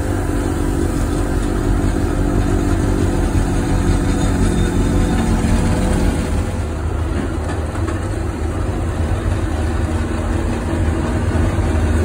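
Petrol snowblower engine running steadily close by as it clears snow.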